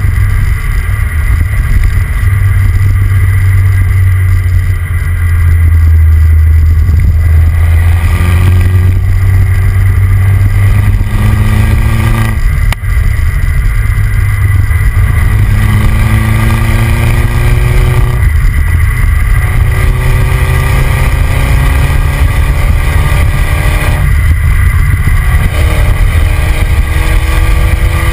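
The 2009 MINI John Cooper Works' turbocharged four-cylinder engine and exhaust, heard from a camera on the rear bumper under heavy wind and road rumble. The engine note rises in pitch four times as the car accelerates, breaking off and falling back between rises.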